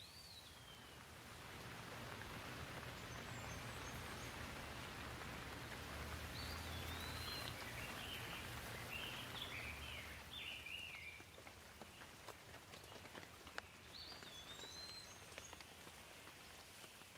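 Faint steady rain with birds chirping: short rising-and-falling calls at the start, a cluster in the middle and a few more near the end. The rain swells over the first couple of seconds and thins after about eleven seconds, leaving scattered drops.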